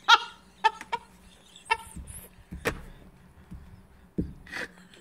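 A woman laughing almost silently, in short high gasps, with a sharp knock about two and a half seconds in and a dull thump just after four seconds.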